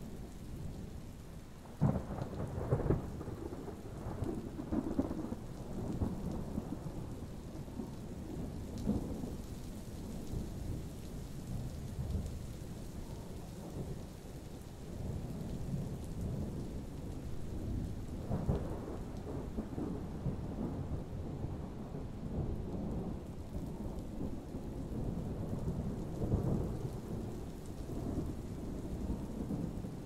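Thunderstorm: thunder rumbling continuously over steady rain. A sudden clap comes about two seconds in, and another swell of thunder builds about two-thirds of the way through.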